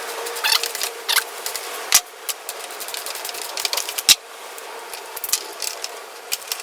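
Socket wrench and metal wheelchair caster parts clicking and rattling as a caster's nut is worked with a 19 mm deep well socket, with two sharper metal knocks about two and four seconds in.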